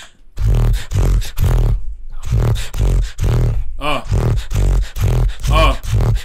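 Human beatboxing: a steady beat of deep kick-drum sounds about twice a second with snare sounds between them, broken by two short wavering pitched vocal sounds, one about four seconds in and one near the end.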